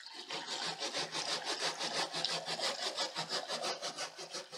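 A sponge scrubbing the deep fryer's wire-mesh basket, back and forth in quick strokes, about six a second, like rasping.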